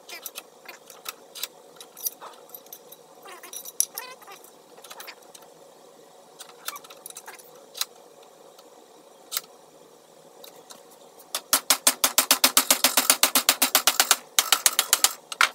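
Light metal clinks and knocks while an aluminium bracket strip is set and adjusted in a bench vise, then, about twelve seconds in, a rapid run of hammer blows on the aluminium in the vise to fold it, with a second short burst of blows near the end.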